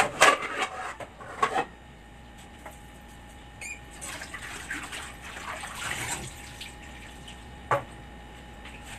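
Kitchenware clattering on a counter, then water running for about two seconds, with one sharp knock near the end.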